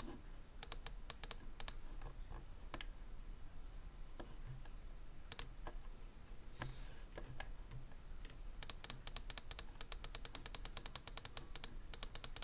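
Clicking at a computer's controls: scattered single clicks at first, then about three seconds before the end a fast run of clicks, around ten a second, broken by a short pause near the end.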